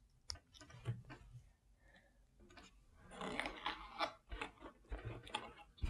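Faint clicks and crackle of LEGO plastic pieces being pressed together and handled, with a denser stretch of rustling about three seconds in.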